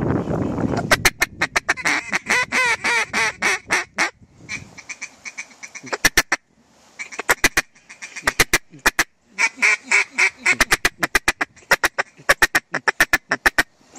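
A mallard duck call blown in quick series of hen quacks: a long run, then shorter bursts of a few notes with pauses between. It is calling to ducks circling overhead to draw them in.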